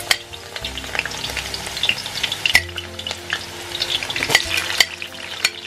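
Sliced onion going into well-heated vegetable oil in a kazan, sizzling and crackling as it hits the oil, with a few sharp clicks of a metal spoon against the plate and pan as the onion is pushed in.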